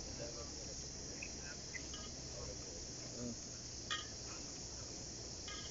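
Steady high-pitched insect chorus, with a few short clicks about four seconds in and again near the end.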